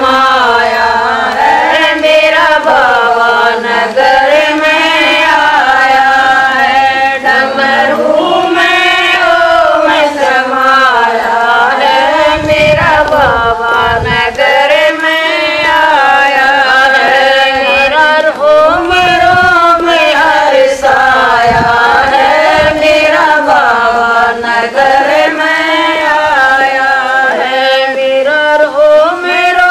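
Group of women singing a Haryanvi Shiva bhajan together in unison, in long drawn-out sung lines like a chant.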